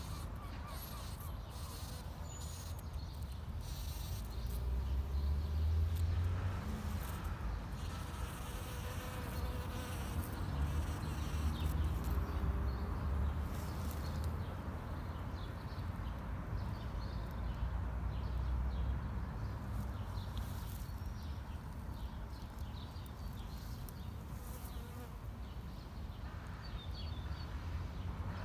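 Bumblebee buzzing as a low, steady hum that swells louder and fades as it moves, with faint bird chirps in the background.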